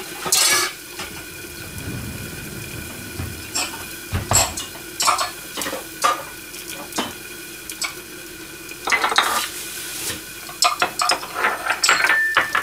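Ceramic bowls, pans and utensils being handled on a kitchen counter beside the stove: irregular clinks and knocks, with a thicker clatter about nine seconds in and again near the end, over a steady faint hum.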